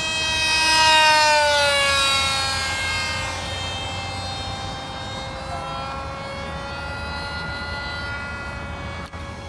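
Brushless electric motor of a radio-controlled model plane whining as the plane makes a fast low pass. The pitch falls sharply as it goes by, loudest about a second in, then settles to a steady whine as it flies off.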